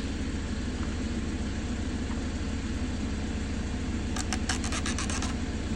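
Steady low hum of an engine-like machine running, with a quick run of sharp clicks about four seconds in.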